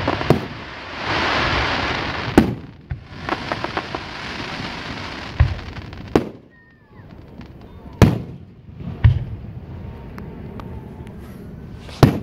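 Aerial fireworks going off: about seven sharp bangs at irregular intervals, with a stretch of hissing for a second or so near the start.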